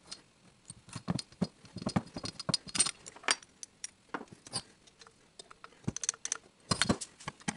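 Small metal engine parts clicking and clinking as they are handled, with the cylinder head and rocker arm pieces knocked and set down on a workbench; light irregular clicks, with a cluster of louder knocks near the end.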